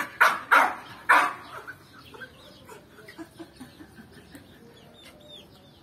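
Chickens clucking and young chicks peeping, in many short, soft calls. Three loud, harsh noises come in quick succession in the first second and a half.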